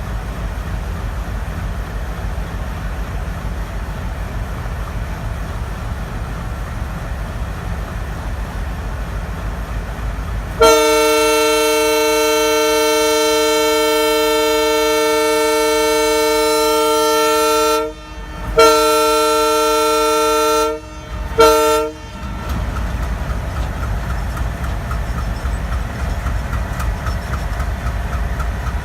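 Twin ALCO WDG3A diesel locomotives (16-cylinder engines) chugging with a steady low rumble. About eleven seconds in they sound the horn: one long single-note blast of about seven seconds, then two shorter blasts, before the rumble carries on.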